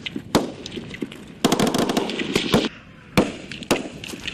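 Small-arms gunfire: a few single shots, then a rapid run of overlapping shots for about a second, then more single shots toward the end.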